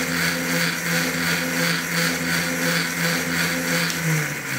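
Kunray MY1020 3000 W brushless motor, driven by a Fardriver ND72260 controller, running on the stand-mounted ATV with a steady electric whine that swells and fades about twice a second. Just after 4 s the pitch jumps briefly, then drops lower. This is the throttle fault that recurs with the replacement controller.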